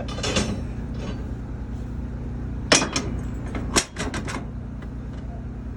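Steel rebar being bent: a few sharp clanks of bar against the bender, clustered around three to four seconds in, over a steady low hum.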